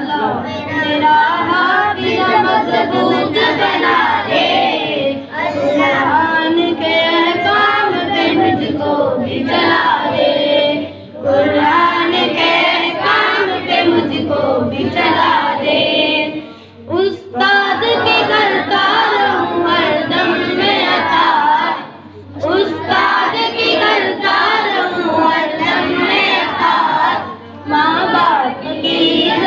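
A boy singing a devotional Urdu poem into a microphone, with children's voices singing along. The singing runs in phrases with a few short pauses between them.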